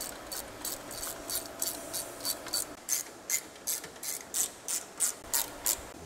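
Ratchet wrench clicking in quick, regular strokes, about three a second, running down the rocker box cover bolts on a motorcycle engine.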